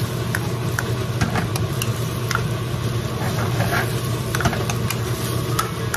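Shrimp and basil stir-frying in a nonstick wok: a metal ladle scrapes and taps the pan in short, irregular clicks over steady sizzling and a low, even hum.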